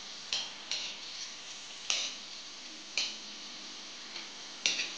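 Pani puri dough discs frying in hot oil in a metal kadhai with a steady sizzle, and a perforated metal skimmer clicking sharply against the pan about five times as the puris are pressed and turned.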